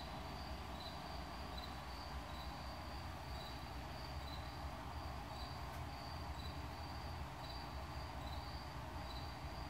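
Steady low room hum with faint high-pitched chirps repeating a little more than once a second.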